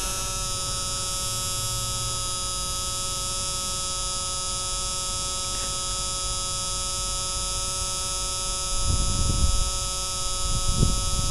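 A steady electrical hum made of several fixed tones at an even level. A low rumbling noise joins it near the end.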